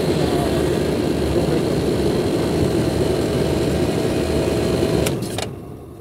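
Air-conditioning condensing unit with Copeland scroll compressors running loud and steady with a faint hum, then cutting out abruptly about five seconds in with a couple of clicks. The unit is cycling on and off, which the technician puts down to not enough freon and the pressure switch.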